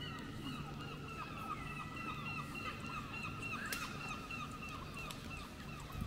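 Gulls calling in a rapid, continuous run of short, downward-slurred notes, about four to five a second, over a steady low city hum. A single sharp click is heard a little past halfway.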